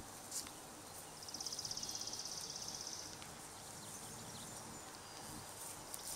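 A small wild animal's high, rapid trill, about two seconds long, starting again briefly near the end, over faint outdoor background.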